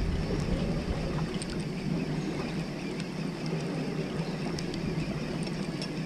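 Steady low hum of a fishing boat's engine under wind and sea noise, with a few faint ticks.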